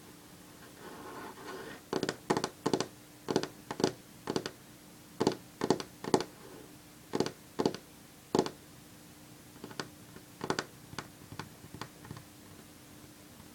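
Long fingernails tapping on a wooden tabletop: sharp clicks in irregular runs, often two or three close together, starting about two seconds in and thinning out near the end. Faint scratching of the nails comes before the tapping begins.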